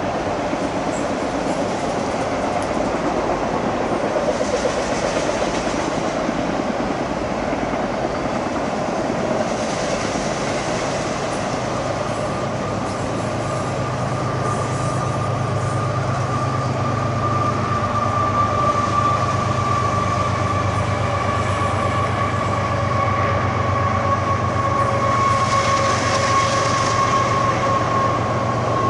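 A freight train of autorack cars rolling steadily past, with continuous wheel and rail noise. A steady high-pitched squeal sets in about twelve seconds in and holds.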